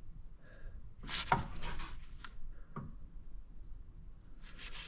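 Light handling noise: a few soft knocks about a second in and again near three seconds, and a short rubbing sound near the end.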